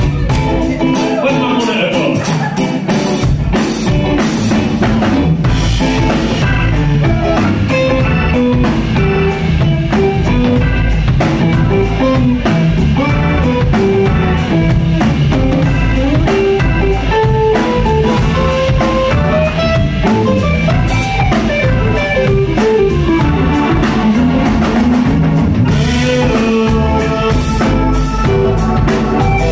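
Live band music from Hammond organ, electric bass, electric guitar and drum kit playing an upbeat groove. The deep bass end comes in about three seconds in, and a moving melody line runs over the band from then on.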